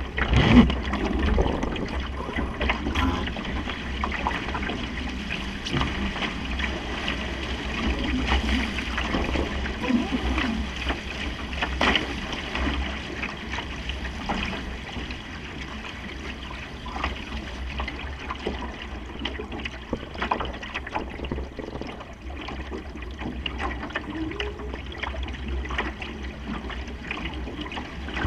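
Water rushing and splashing along the hull of a Supernova sailing dinghy under way in a fresh breeze, with wind rumbling on the microphone. It is loudest about half a second in.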